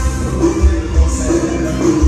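Loud music with a heavy, pounding bass beat, played through a Toyota Hilux's car audio sound system.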